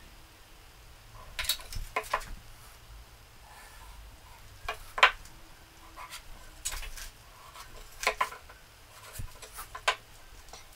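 Pencil and steel rule tapping and scraping on a wooden guitar neck and workbench as layout lines are marked: irregular light clicks and short pencil strokes, the sharpest about five seconds in.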